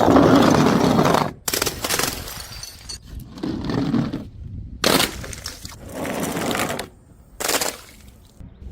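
Things breaking in a series of about six crashes, the first and loudest lasting over a second, the later ones shorter.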